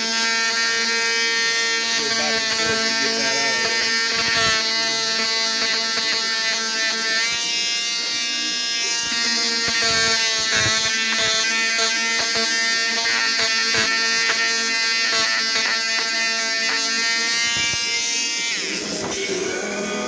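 Small Ryobi electric detail sander running steadily as it sands the angles and edges of an oak cabinet door. About eighteen seconds in it is switched off and its whine drops away as the motor winds down.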